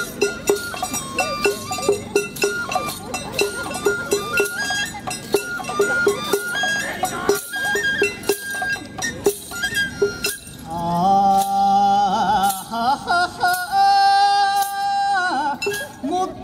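Japanese folk (min'yō) music for a kasa odori hat dance, in an instrumental passage between sung verses: a bright stepped melody over a steady clacking beat. About ten seconds in, it changes to long held notes with a wavering pitch.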